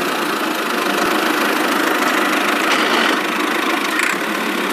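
Steady engine-like running sound for a toy tractor, an even mechanical drone with no change in speed.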